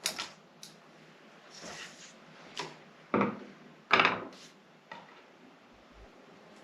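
Bonsai pruning shears snipping and crunching through ficus branches: a string of irregular sharp clicks and snaps, the loudest two about three and four seconds in, with handling rustle between them.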